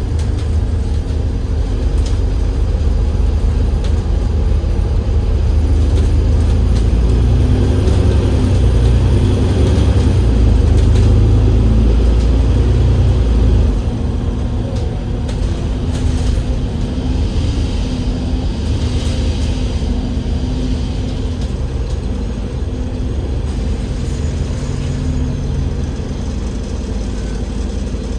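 Alexander Dennis Enviro500 MMC double-decker bus's Cummins L9E diesel engine, with a ZF Ecolife automatic gearbox, heard from inside the bus while it drives. The low engine rumble builds and is loudest for several seconds, then drops off sharply about halfway through and runs on quieter.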